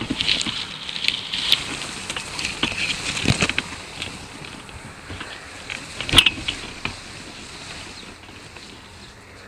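Tall grass stems rustling and crackling against the hang glider's wing-mounted camera, with scattered clicks. A louder knock comes a little over three seconds in and a sharp click about six seconds in.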